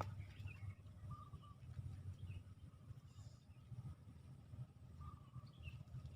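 Faint outdoor ambience with a short warbling bird call heard twice, about a second in and again near the end, and a few fainter chirps, over a low rumble.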